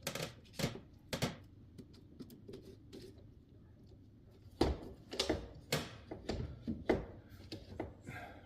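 Sharp knocks and clacks of rigid parts being handled and fitted: a few in the first second or so, a pause, then a busier run from about halfway until shortly before the end.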